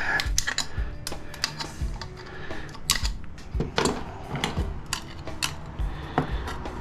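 Irregular small metallic clicks and clinks of scrap parts being handled and taken apart by hand.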